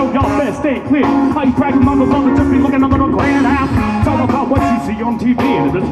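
Live band playing, with a vocalist singing into a microphone over drums and guitar.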